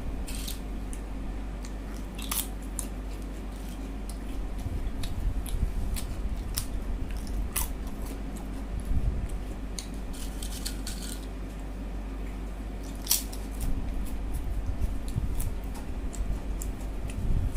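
A person eating egg curry with rice: close-up chewing with scattered sharp, wet mouth clicks and smacks, over a steady low hum.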